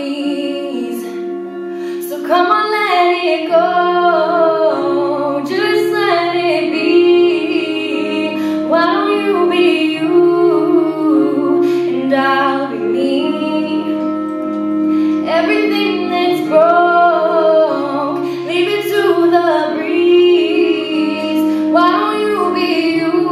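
A young woman singing a slow pop ballad into a microphone, over an accompaniment of held chords that change every couple of seconds.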